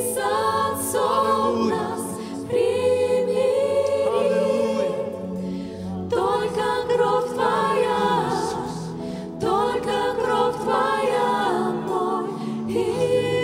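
Worship team and choir singing a Russian worship song in Russian, several voices together in long sung phrases over a steady band and keyboard accompaniment.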